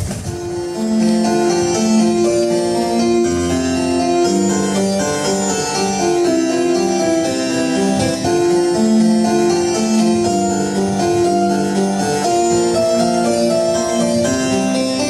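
Instrumental music: a keyboard melody of held notes stepping up and down, with no drum beat.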